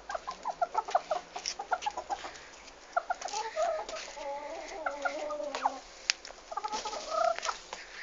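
Chicken clucking: a run of quick short clucks, then a longer wavering call in the middle, then more short clucks near the end.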